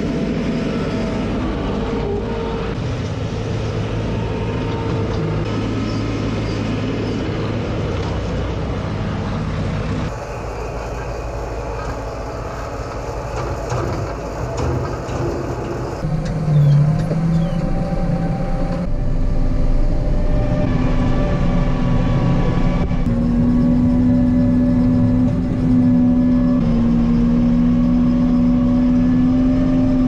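Farm machinery engines running through several quick changes: a New Holland LS180 skid steer loader's engine, then a tractor engine heard from inside its cab. A steady engine hum holds through the last several seconds.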